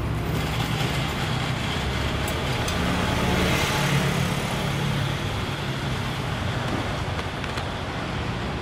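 Street traffic noise: a steady hum of road vehicles' engines and tyres, swelling a little about three to four seconds in as one passes closer.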